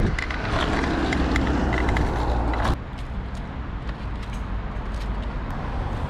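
Oxelo kick scooter's wheels rolling over paving slabs, a rough rattling noise that drops off sharply about two and a half seconds in, over a steady low rumble.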